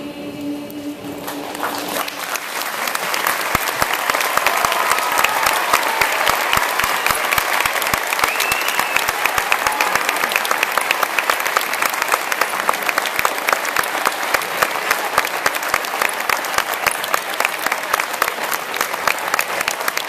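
A choir's final held chord fades out, then a large audience breaks into applause that builds over about two seconds and goes on steadily.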